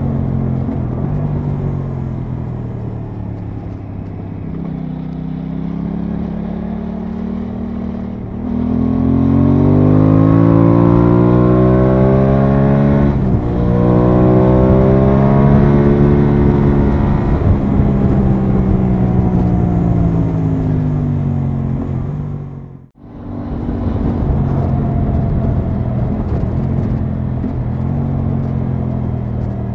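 Engine of an Aprilia Tuono 660 motorcycle, a parallel twin, running under way with wind noise. A third of the way in it accelerates hard with rising pitch, breaks for a moment like a gear change, then eases off with slowly falling pitch. The sound cuts out briefly about three-quarters of the way through and resumes at a steady cruise.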